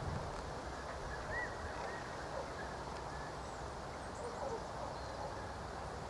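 Quiet outdoor ambience: a steady low background noise with a few faint, short bird chirps between about one and three seconds in.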